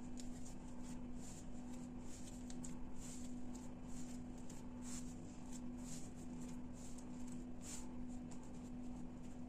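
Hands gathering and tucking a ball of risen bread dough into shape, giving faint, irregular soft rustling, under a steady low hum.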